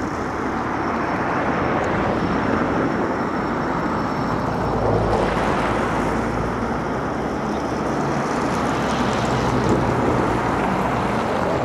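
A car being driven slowly a short way: a steady rushing of engine and tyre noise with a low engine hum underneath.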